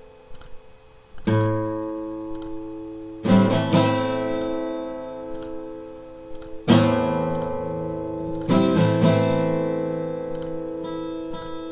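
Music: slow strummed acoustic guitar chords, each struck and left to ring and fade, with a few lighter picked notes near the end.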